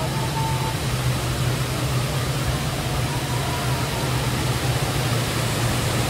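Dudhsagar Falls, a tall multi-tiered waterfall, pouring over rock in a steady roar of falling water with a strong low rumble.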